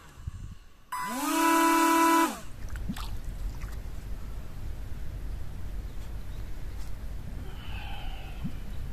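Small DC motors turning the plastic airplane propellers of a foam RC air boat, switched on from a phone over WiFi. About a second in they spin up to a steady high whine for about a second and a half, then wind down with the pitch falling. After that comes a steady low rumble of wind on the microphone.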